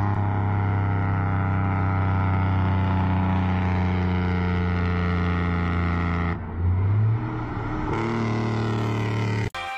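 A motor vehicle's engine running with a steady drone; about six and a half seconds in its pitch shifts and briefly rises, then it holds steady again and cuts off suddenly near the end.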